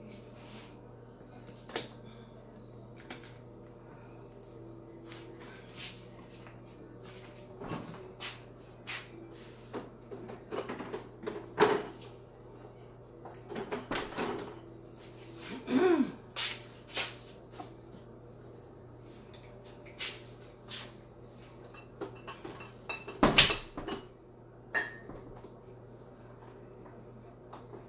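Kitchen clatter: scattered knocks and clunks of cupboard doors and dishes being handled, over a steady low hum. A short wavering voice-like sound comes about halfway through.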